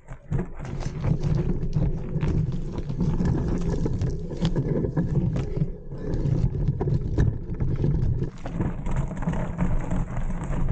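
Mountain bike ride noise picked up by a bike- or body-mounted action camera: a steady low rumble of wind and tyres on dirt singletrack, with frequent clicks and rattles as the bike runs over bumps.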